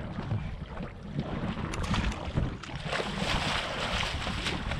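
Wind rumbling on the microphone over lake chop; from about three seconds in, a hooked king salmon thrashes and splashes at the surface as it is scooped into a landing net beside the boat.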